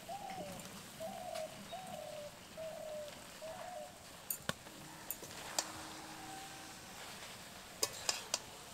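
A bird calling in a run of short cooing notes over the first four seconds, then a few sharp clicks and taps of the wicker basket and a spatula against the steel kadai as shredded cabbage goes in.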